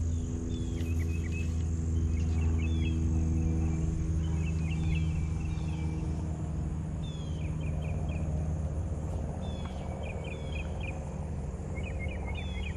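Outdoor ambience dominated by a steady low mechanical hum, loudest in the first half and fading after about eight seconds. Over it a bird chirps in short repeated phrases and insects keep up a steady high buzz.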